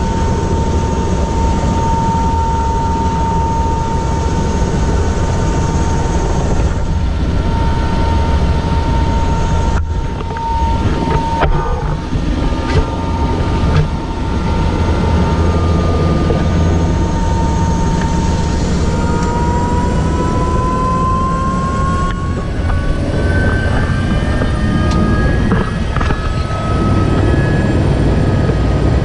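Helicopter turbine engine and rotor running, heard inside the cabin: a loud, steady low rumble with a high whine. Near the middle a few brief clicks break in, and in the last third the whine rises in pitch.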